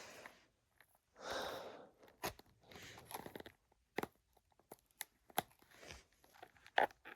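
A pocket knife slicing through packing tape on a small cardboard box in one rasping stroke, followed by scattered clicks, crunches and scrapes as the cardboard is worked open.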